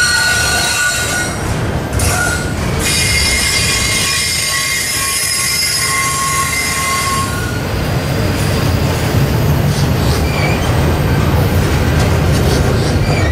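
CSX double-stack intermodal freight train rolling slowly past, its wheels squealing in several high, steady tones that break off briefly and die away about halfway through. A low rumble of the passing cars fills the rest.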